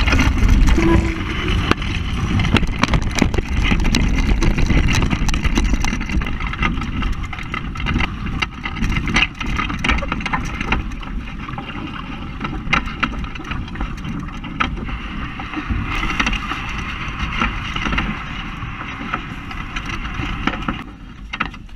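Wind buffeting the microphone and water rushing and splashing along the hulls of a Hobie Cat 16 catamaran under sail, with many small splashes and spray hits. The deep wind rumble eases after about six seconds.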